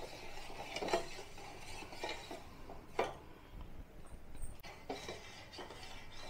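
Sugar and water being stirred in a pan to make sugar syrup, the stirring utensil scraping and clinking against the pan several times, about a second apart.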